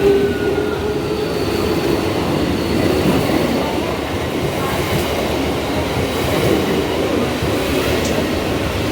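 Mumbai suburban electric local train running on the track: a steady, dense rumble, with a high whine that fades out in the first second or so.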